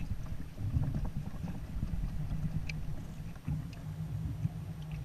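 Low, uneven rumble of water and handling noise on a camera mounted on a sit-on-top kayak, with scattered light clicks and taps.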